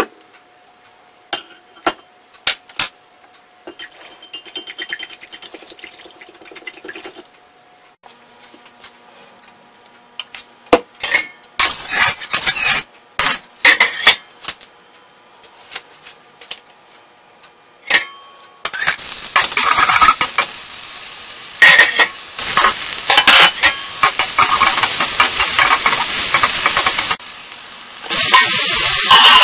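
A spoon stirring the sauce mix in a glass measuring cup, with faint clinks, then louder knocks of utensils on the wok. Minced ginger and garlic then sizzle loudly in hot oil in the wok, with a spatula knocking and scraping. Near the end sliced sea cucumber goes in and the sizzle comes back louder.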